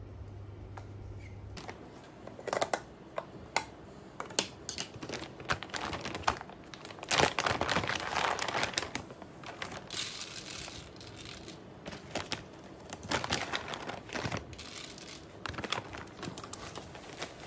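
Plastic and paper bags of hamster bedding crinkling as they are handled, with many irregular clicks as loose white substrate pellets are tipped into a clear acrylic tank.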